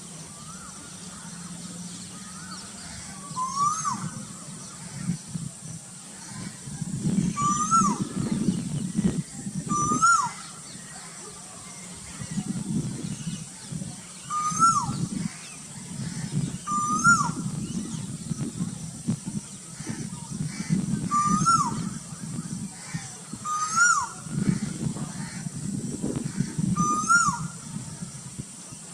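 A cuckoo calling again and again, one short note each time that rises and then drops sharply, about eight calls a few seconds apart. A low, uneven rumble runs underneath.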